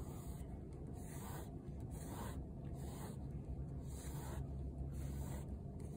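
Yellow block crayon rubbed over a sketchbook page in repeated scratchy back-and-forth strokes, about one or two a second.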